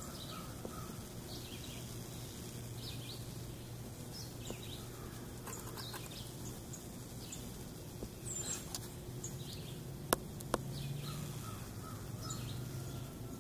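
Wild birds chirping and calling in short, scattered notes over a low steady hum, with two sharp clicks about half a second apart near ten seconds in.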